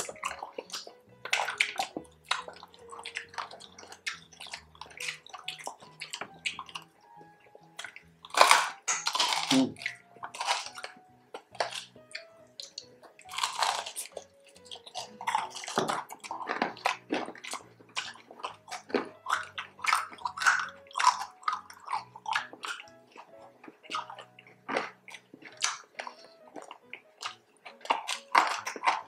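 Close-up crunching and chewing of crispy pork belly crackling: irregular crisp bites and crunches throughout, over quiet background music.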